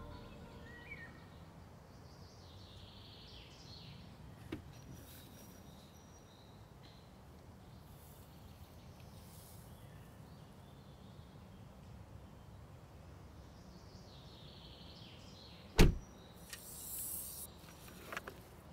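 Faint rural ambience, then a car door slamming shut once, loud and sharp, about three quarters of the way through. A brief rustle and a couple of small clicks follow.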